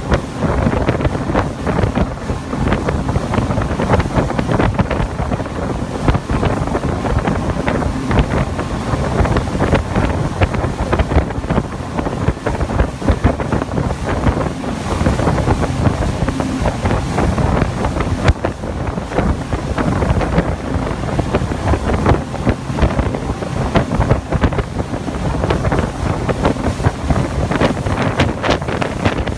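Speedboat running at speed: wind buffeting the microphone over the steady rush of the engine and the churning wake.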